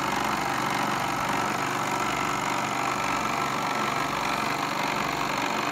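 Bell & Howell 1574 16mm sound projector running with a steady mechanical whir from its motor and film-drive mechanism.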